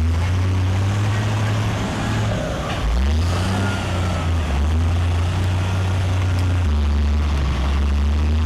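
Heavy diesel engine of a front-end loader working. Its low drone dips around two seconds in and revs back up about a second later, then holds steady.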